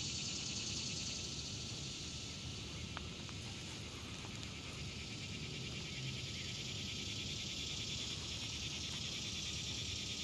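Steady chorus of summer insects, a high, finely pulsing drone, with a faint steady tone beneath it and low rumble.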